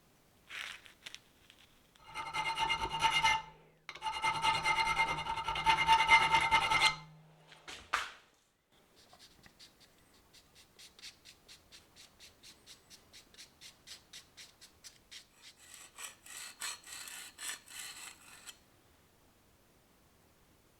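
Hand file stroking steel in a quick, even rhythm, the file work on a carbon-steel knife blank. Before it, a small power tool runs in two short spells with a steady whine and low hum.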